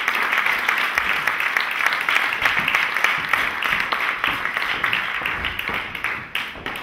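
Audience applause: dense, fast clapping from many hands that slowly dies away toward the end.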